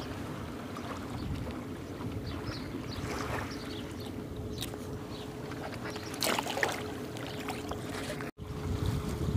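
Steady low outdoor rumble of wind and water at a riverbank, with a faint steady hum and small handling sounds; a brief louder rustle comes about six seconds in, and the sound drops out for an instant near the end.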